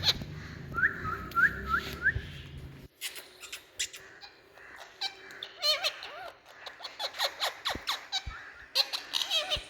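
Indian ringneck parrot calling: four short rising whistles about a second in, then a rapid string of sharp squawks, chirps and clicks.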